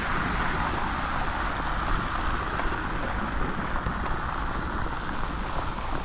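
Steady rushing noise of wind on the microphone mixed with street traffic in a snowstorm, with a hiss that fades a little over the first few seconds.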